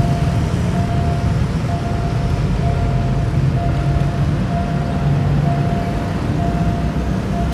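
Railway level-crossing warning signal sounding a steady electronic beep a little more than once a second, warning of an approaching train as the barriers come down. It is heard over a loud, steady low rumble of motorcycles and road traffic.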